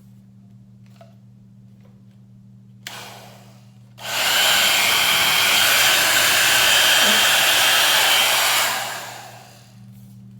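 MonoMono Dreamworld 1800 W hair dryer with an AC motor. A click and a short puff of air come about three seconds in. The dryer then blows at full force with a steady high whine for about five seconds, is switched off and winds down over about a second.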